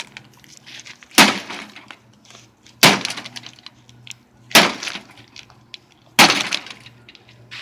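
Rubber mallet blows smashing a microwave oven, struck four times at an even pace, each blow followed by a brief clatter of breaking pieces.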